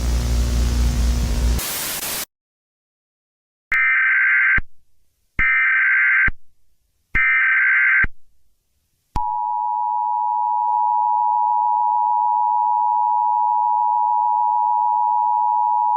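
Emergency Alert System tones: three harsh, screeching SAME data bursts about a second long each, followed from about nine seconds in by the steady two-tone EAS attention signal. It opens with static hiss and a low hum that ends in a short burst of static.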